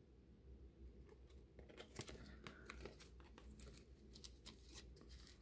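Faint crinkling and clicking of plastic-sleeved trading cards being handled and flipped through, starting about two seconds in.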